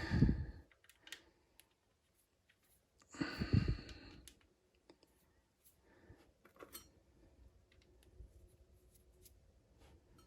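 Faint, scattered clicks of small metal engine bolts being handled and set down, with one louder, short rasping sound about three seconds in.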